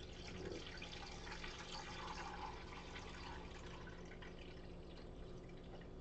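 Water trickling and dripping as it is poured into a Brita filter pitcher, faint, easing off about halfway through.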